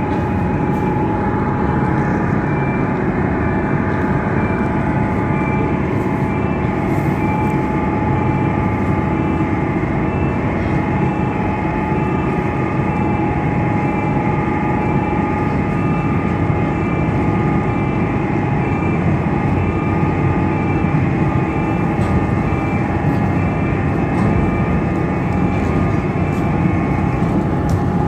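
Car ferry MV Isle of Lewis's engines and machinery running steadily: a loud, even rumble with a constant whine. A high beep repeats at an even pace while the bow visor is raised, and stops near the end as the visor comes to rest.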